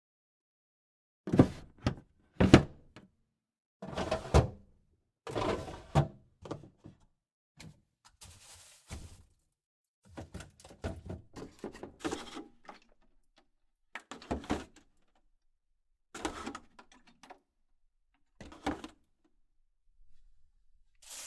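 Refrigerator door sounds: two sharp thunks near the start, then a run of shuffling, rattling handling noises in short separate bursts as things inside the fridge are moved about during a search.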